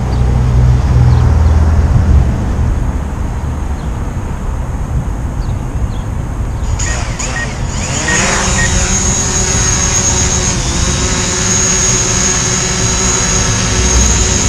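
DJI Mavic Pro quadcopter: wind buffets the microphone at first, then about seven seconds in its four motors spin up with a rising whine and a few short beeps. The propellers settle into a steady high whine as it lifts off.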